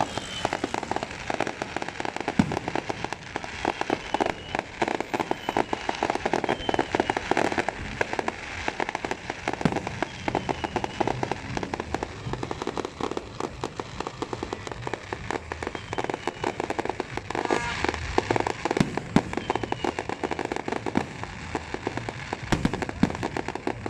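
Fireworks going off in a dense, continuous crackle of many small pops, with short falling whistles now and then.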